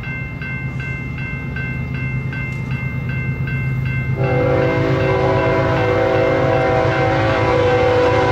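Approaching GE diesel freight locomotive with a steady low engine rumble, while a bell dings about three times a second. About four seconds in, the locomotive's multi-chime air horn starts one long blast that drowns out the bell and is still sounding at the end.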